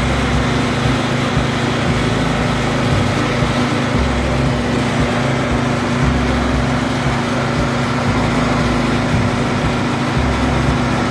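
Riding lawn tractor's engine running steadily while the tractor drives along, a constant hum with an uneven low rumble beneath it.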